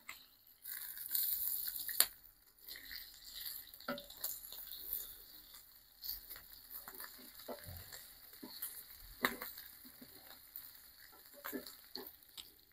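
Bacon, sausages and hash browns sizzling faintly on a cast iron grill grate over a charcoal kettle, with a few sharp clicks and scrapes of metal tongs on the grate as the food is moved.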